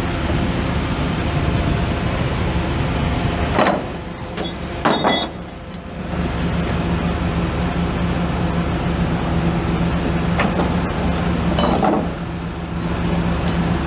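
Chevrolet C7500 truck's 7.0L gas V8 running at a steady idle, with three short loud hisses of air from its air-brake system about four, five and twelve seconds in.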